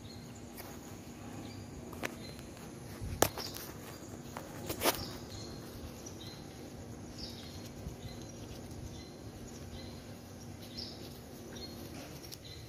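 Outdoor platform ambience with small birds chirping on and off in short high chirps. A few sharp clicks or knocks stand out, the loudest a little after 3 s and just before 5 s, over a faint steady hum that stops near the end.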